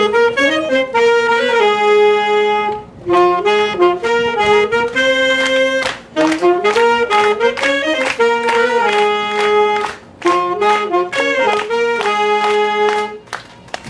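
Saxophones playing a melody on their own as a demonstration of the instrument's tone. The tune comes in phrases with short breaks about three, six and ten seconds in, and the last phrase ends just before the close.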